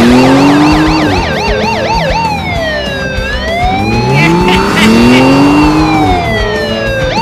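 Police car siren going from a fast yelp to a slow rising and falling wail, then back to the yelp near the end, with an engine revving up twice underneath.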